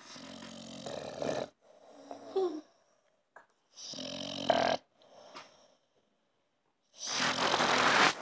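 American Staffordshire terrier snoring in its sleep: three long, rattling snores a few seconds apart, each followed by a shorter, softer breath, the last snore the loudest, near the end.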